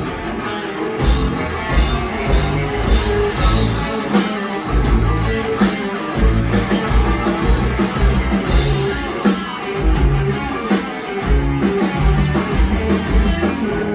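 A live rock band playing an instrumental passage: electric guitars over a driving drum kit, with regular drum and cymbal hits. The full band stops just at the end, leaving sparse bell-like keyboard notes.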